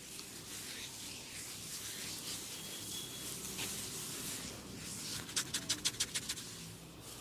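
Barber's hands rubbing and working an oiled scalp and hair, a steady rustle, then a quick run of about eight sharp snaps in about a second a little over five seconds in.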